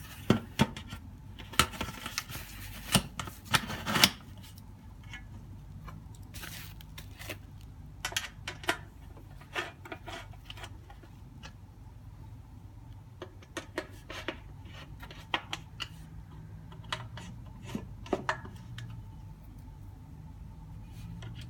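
Lectern parts being handled as a leg is fitted onto the top and its screws tightened: several sharp knocks in the first few seconds, then scattered light clicks and scrapes over a faint low hum.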